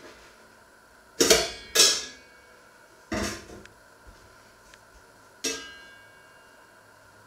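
Four sharp metallic clanks, each with a brief ring: two in quick succession just over a second in, another around three seconds, and a last one about five and a half seconds in. These are metal kitchen tongs knocking against a pan while the meat is lifted out.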